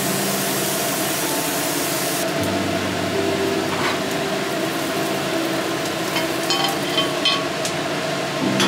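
Chickpeas sizzling in oil in a cast-iron tamagoyaki pan over a gas flame, the hiss easing after about two seconds. A few light metallic clinks come near the end as the pan is moved on and off the burner grate.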